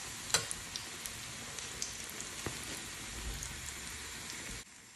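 Breaded slice of bread shallow-frying in hot oil in a pan: a steady sizzle with scattered crackling pops. Near the end it drops suddenly to a fainter sizzle.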